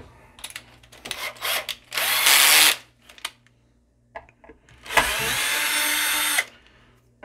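Drill/driver with a Phillips bit backing a screw out of a speaker's rear terminal plate: a short whir about two seconds in, then a steady run of about a second and a half about five seconds in, with light handling clicks between.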